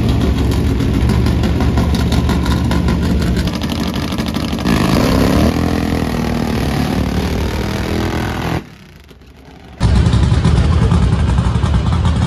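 Loud drag-racing motorcycle engines running at the starting line, with a rev that rises and falls about five seconds in. After a short drop about nine seconds in, drag-race car engines run steadily in the staging lanes.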